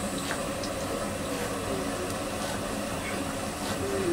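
Steady hiss of battered onion frying in a kadai of hot oil over a stove burner, with a few faint clicks.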